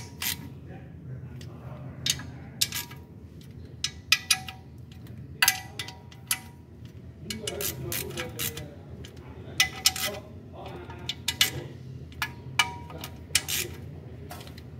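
Socket ratchet and extension turning steel oil-pan bolts: irregular metallic clicks and clinks, some ringing briefly, in small clusters.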